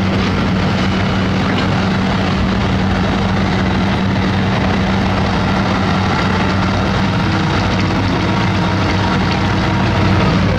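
Diesel engine of heavy construction machinery running steadily at constant speed, a loud, even drone with a low, unchanging pitch.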